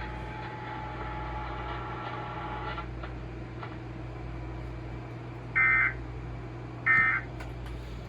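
Emergency Alert System end-of-message tones: two short, loud, shrill data bursts about a second apart, the coded signal that closes the alert broadcast. A faint steady background of several tones stops about three seconds in.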